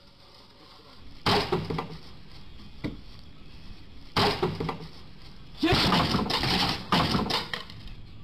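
Wood being struck with a swung tool: hard knocks and cracking about a second in and again about four seconds in, then a louder run of knocks and crunching wood from about six seconds in.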